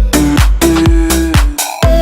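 Electronic dance music with a steady beat, about four beats a second, dropping out briefly near the end.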